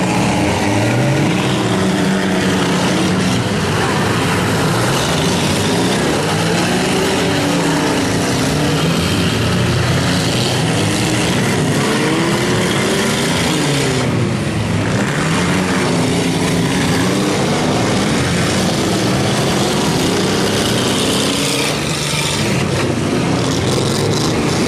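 Several demolition derby cars' engines revving up and down in long repeated rises and falls, with a few sharp knocks of impacts near the end.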